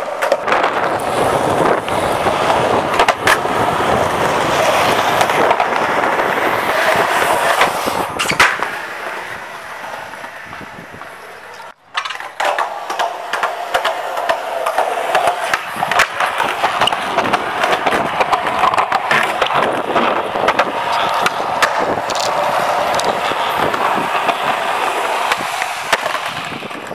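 Skateboard wheels rolling on concrete, a steady rough rumble, with sharp clacks as the board is popped and lands. The sound drops out for a moment just before halfway and starts again.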